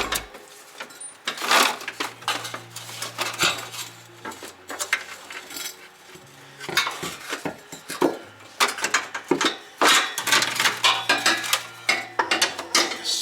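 Irregular metallic clanks and clinks as a steel cardan shaft (propeller shaft) is manoeuvred out from under the car, knocking against underbody metal, with busier clatter in the second half.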